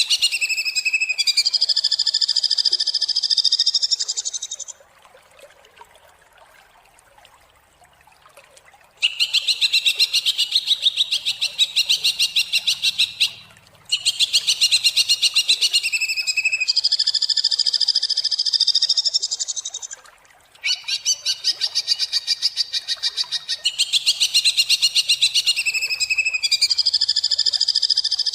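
Greater green leafbird (cucak ijo) singing long phrases of rapid, harsh, machine-gun-like repeated notes that run into high buzzy trills. The singing pauses for about four seconds after the first phrase, and the same phrase pattern comes back several times.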